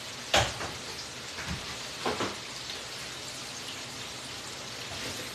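Hot oil sizzling steadily in an electric deep fryer around french fries and a battered lobster tail. A few sharp knocks cut through it, the loudest just after the start.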